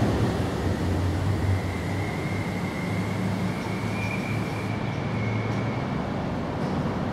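Steady low rumble, with a faint high whine that comes in about a second and a half in and fades out around five seconds.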